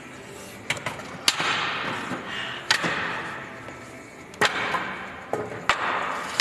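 Heavy hex dumbbells knocking against a metal dumbbell rack: about half a dozen sharp, irregular knocks as the weights are set down and shifted.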